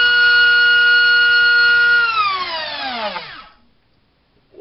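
Multistar Viking 2208 2600kv brushless motor spinning a HobbyKing 5x4 three-bladed prop on a 4S battery, a steady high-pitched whine at high speed. About two seconds in it is throttled off and the whine falls in pitch as the motor and prop spin down to a stop.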